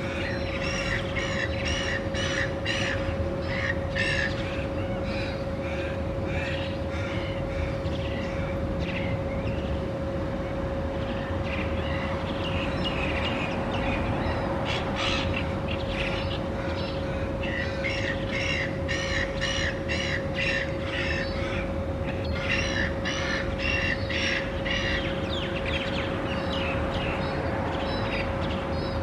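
Birds calling in harsh, rapid series of repeated notes, in several bouts, from a mixed scavenging flock of silver gulls and little ravens. A steady hum and a low background rumble run beneath.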